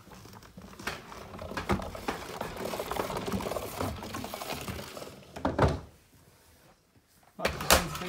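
Handling noise as a Numatic Henry vacuum cleaner is carried down a staircase: rustling and knocking of the canister and hose, with a heavier thump about five and a half seconds in and more knocks near the end.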